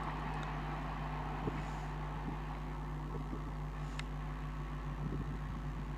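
Freight train running past, heard faintly as a steady low drone with a few faint clicks.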